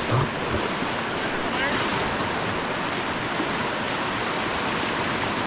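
Whitewater river rapids rushing steadily around the raft.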